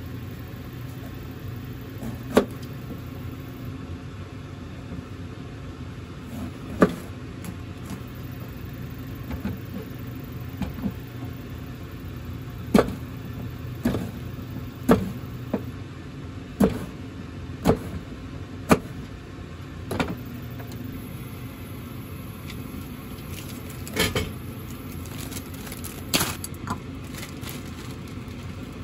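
Kitchen knife cutting through an eggplant and knocking on a plastic cutting board: single sharp knocks a few seconds apart, coming about once a second in the middle, then a few more knocks near the end. Under it runs a steady low hum.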